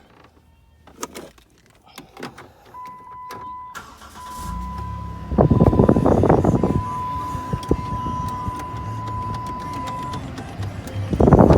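Minivan engine started with the key: a few clicks, a steady electronic warning tone from the dash, then the engine cranks and catches with a loud burst. It settles to a steady idle, and another loud burst comes near the end.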